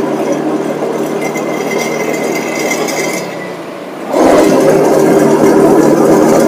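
Auto-rickshaw's small engine running while riding through road traffic. The engine noise grows much louder about four seconds in.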